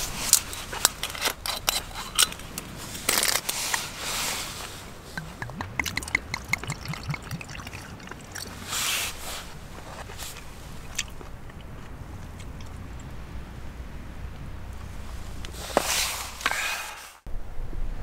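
Close-up handling noises: crinkling, scraping and rustling with many sharp little clicks, busiest in the first half, then quieter, with a sudden cut near the end to a steady rushing noise.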